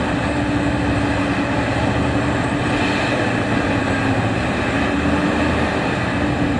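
Liebherr R 996 mining excavator's diesel power running steadily under load as it works a bucket of rock over a haul truck: a continuous heavy drone with a held hum.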